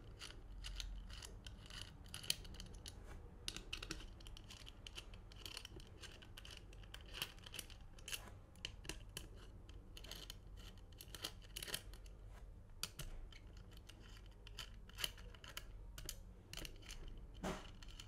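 Small screws being undone with a hex key from the metal shell of an HPA airsoft engine: faint, irregular little clicks and scrapes of metal on metal.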